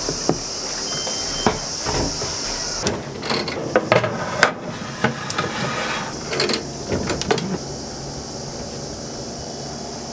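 Metal baking tray clattering and scraping as it is slid onto an oven rack, a run of irregular knocks and clicks, followed by the oven door being shut; it goes quiet after about seven and a half seconds.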